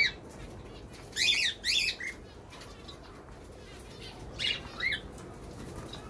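Small parrots calling in an aviary: two pairs of short, harsh calls, about a second in and again about four and a half seconds in.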